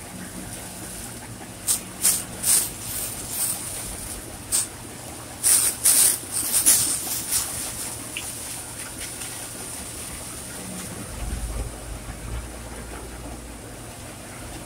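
Water from a hose spraying onto the steel hopper and chute of a cement mixer truck, in uneven splashing bursts over the first several seconds, over the steady hum of the truck. A deeper low rumble comes in about eleven seconds in.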